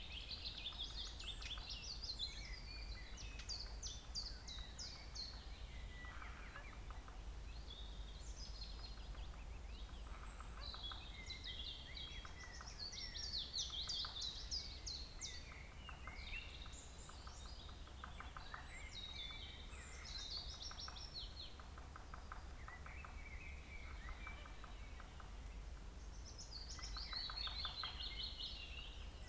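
Several songbirds singing at once, with overlapping quick, high trills and chirps throughout, over a steady low rumble.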